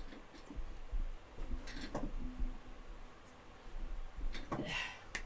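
Faint handling noises while a microphone boom arm is being assembled: a few rustles, soft knocks and clicks, loudest in two clusters about two seconds in and near the end.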